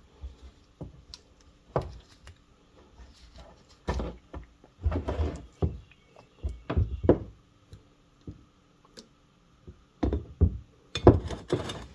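Irregular knocks, clunks and clicks of hand tools and small engine parts being handled on a workbench, as the carburetor is worked free of the fuel tank. The loudest cluster of knocks comes near the end.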